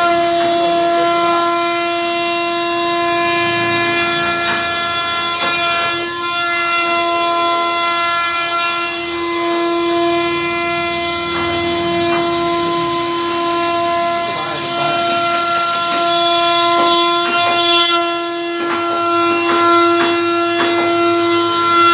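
CNC router spindle running with a steady high whine while its bit carves a relief pattern into a wooden door panel, with a hiss of cutting over it.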